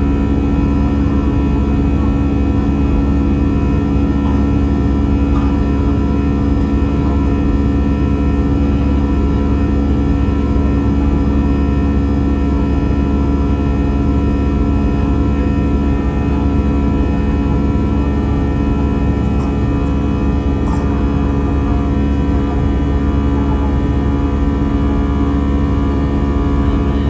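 Steady cabin noise of an Airbus A320 in flight: a constant drone from the jet engines and airflow, with several steady hums layered in it.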